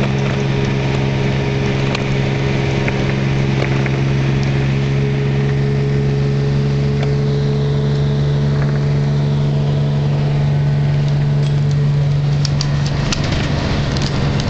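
Interior sound of a 1988-89 New Flyer D40HF diesel city bus under way: the engine drones at a steady pitch. Near the end the drone eases and rattling clicks come in.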